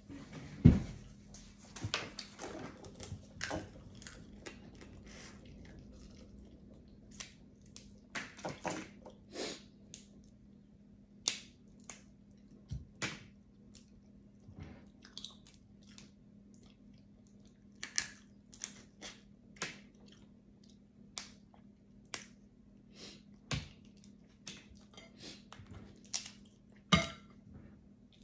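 Crab legs being cracked and snapped apart by hand and chewed: a scattering of short, sharp shell cracks and clicks between quieter chewing, with a loud knock less than a second in, over a faint steady hum.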